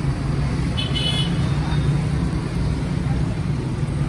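Steady low rumble of road traffic, with a brief high-pitched tone about a second in.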